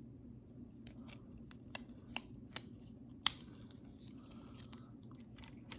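Faint plastic clicks and taps from a small HO slot car as its plastic body is handled and snapped back onto its Super G chassis: about five sharp clicks, the loudest a little past three seconds in.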